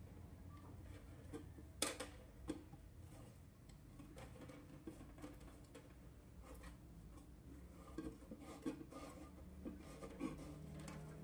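Faint rubbing and scattered small clicks of insulated wire being wound around a loudspeaker's magnet, with a sharper tap about two seconds in.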